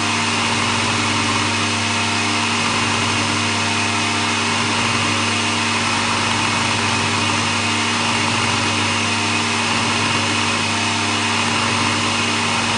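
Cecotec Mambo food processor's motor running steadily at speed 9, its blade chopping raw quince pieces and lemon into a purée. A loud, even whir with a constant hum.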